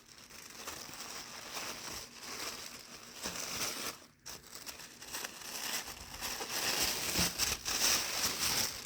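Paper wrapping crinkling and rustling as it is handled and pulled open, with many small crackles; a brief pause about four seconds in, then louder handling toward the end.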